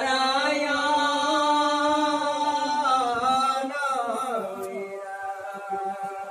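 A single voice chanting a puja mantra in long held notes, the pitch sliding lower about three seconds in, then carrying on more softly.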